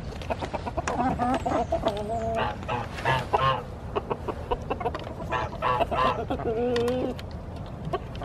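A flock of chickens clucking and calling as they leave the coop, several birds at once, with short clucks mixed with a few longer drawn-out calls.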